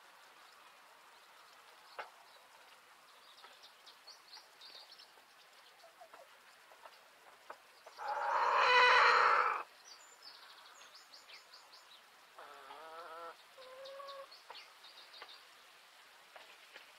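Chickens in a hen run: one loud call about halfway through lasting about a second and a half, then a shorter wavering cluck and a brief call a few seconds later. Small birds chirp faintly throughout.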